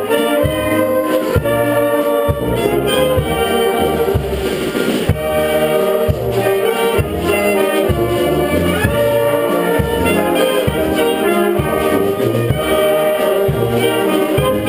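Live brass band playing a folk dance tune, trumpets and trombones over tuba bass notes that keep a steady beat about twice a second.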